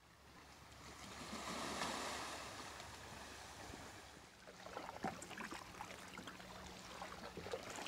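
Canoe paddling on calm water: a soft wash of water swells and fades over the first couple of seconds, then from about halfway the paddle dips and pulls with small splashes and drips.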